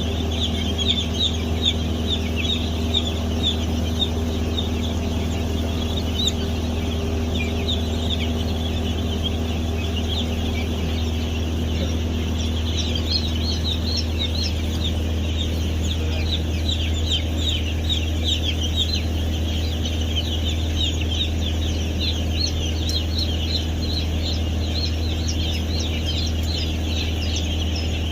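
A large flock of young broiler chicks peeping constantly, many short, high, falling peeps overlapping. Beneath them runs a steady low machine hum.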